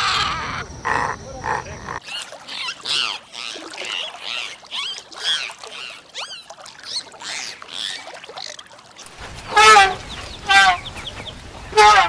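Poultry calling in three edited clips. At first there are a couple of seconds of a louder animal call, then many high, overlapping chirps. From about nine seconds in come four loud, separate, falling calls.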